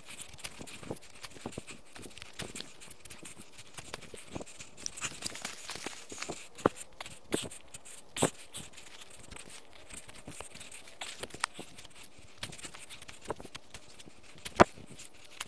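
Shovel blade stabbing into turf and soil and pushing dirt aside, with irregular crunches, scrapes and rustles, and one sharp strike near the end.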